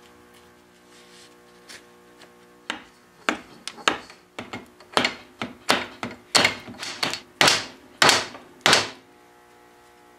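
About a dozen sharp knocks of wood and tools in an irregular run, from handling the chair parts during an epoxy glue-up. They start a few seconds in, come under a second apart, grow louder toward the end and stop about a second before the end.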